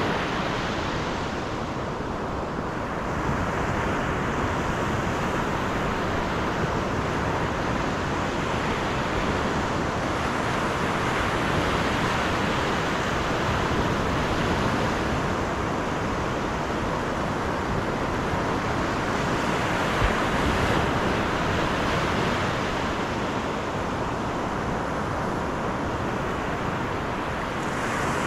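Steady road and wind noise of a moving car.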